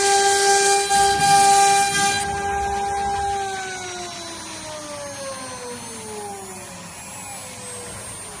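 CNC router spindle whining at a steady high speed along with a hiss that stops about two seconds in; a little over three seconds in the whine starts falling steadily in pitch and fades as the spindle winds down.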